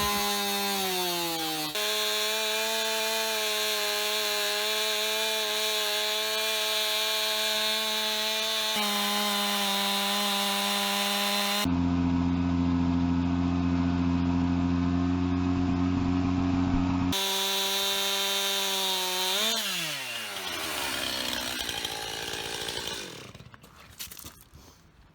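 Stihl MS 291 two-stroke chainsaw running at a steady high speed, ripping lengthwise along a log on a first-cut guide jig. A little over three-quarters of the way through the revs fall away and the engine winds down.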